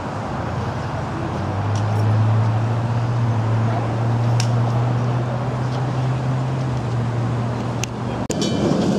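Vintage Sydney electric tram standing at the stop, giving off a steady low hum that starts about a second in and cuts off near the end, over a general outdoor background.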